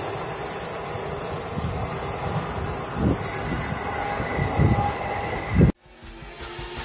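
Amtrak Vermonter's Amfleet passenger cars rolling past on the rails and away, a steady rumble of wheels on track with a high hiss on top. The sound cuts off abruptly near the end.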